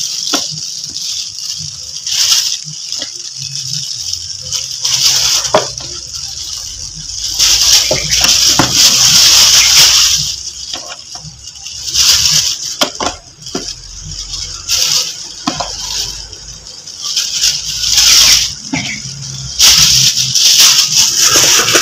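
Water splashing in a plastic tub in irregular bursts as live Asian swamp eels are grabbed by hand and lifted out.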